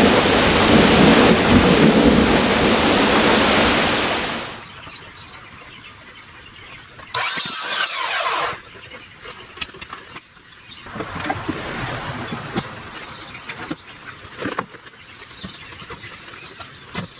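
Loud steady rushing noise that fades out about four seconds in, then an electric miter saw cutting through a pressure-treated board in one short burst of about a second and a half, some seven seconds in.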